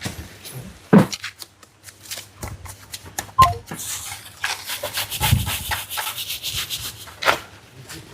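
Bricklaying: a mason's trowel scraping mortar and tapping bricks, a string of sharp knocks with a longer scraping stretch about four to seven seconds in.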